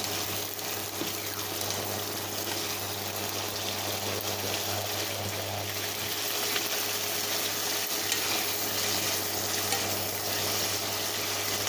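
Green beans with onion and garlic sizzling steadily in hot oil in a pan while being tossed with two wooden spatulas, with a few light scrapes and taps of the spatulas.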